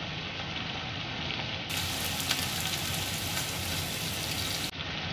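Broccoli and battered fish fillet sizzling steadily in a hot nonstick frying pan while a spatula stirs them, with a few faint scrapes and clicks of the spatula.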